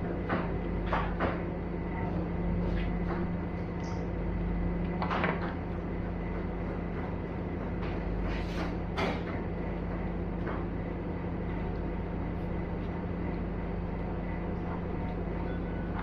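Eating at a table: scattered light clicks and knocks of hands and utensils on disposable food trays, over a steady low hum in the room.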